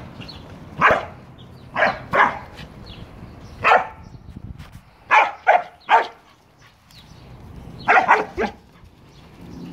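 Corgi barking in play, about ten short sharp barks in irregular bunches of one to three, with a brief lull a little past the middle.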